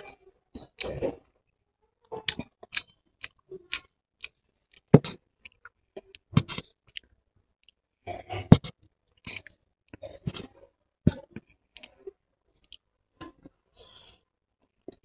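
Close-miked chewing of chow mein noodles: irregular short mouth smacks and clicks, a few a second, with brief pauses between mouthfuls.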